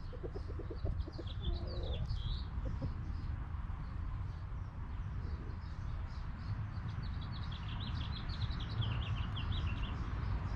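Hens clucking in a quick run of low notes during the first two seconds, while a small songbird sings high, twittering phrases, once early and again about seven seconds in, over a steady low rumble.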